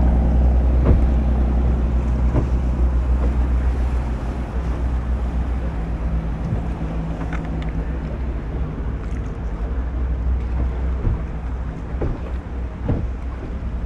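A boat engine running steadily with a low rumble, with wind on the microphone and a few light knocks.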